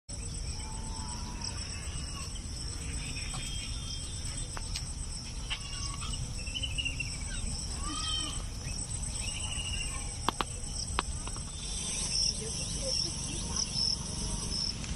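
Insects chirring steadily in a continuous high-pitched trill, with a few short chirping calls here and there and a couple of sharp clicks about ten seconds in.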